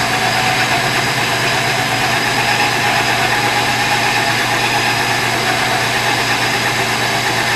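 Milling machine running steadily, its insert mill cutting a slot in a cast iron block.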